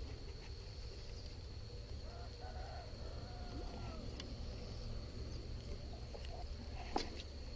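Quiet open-air ambience: a steady low rumble, a thin steady high whine, and a few faint gliding bird calls in the middle. A single sharp click comes near the end.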